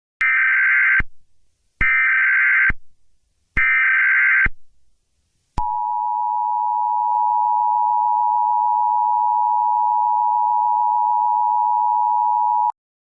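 Emergency Alert System header: three short bursts of buzzing digital data tones, about a second apart. They are followed by the EAS two-tone attention signal, a steady dual tone lasting about seven seconds that cuts off abruptly. This marks the start of a new emergency alert message.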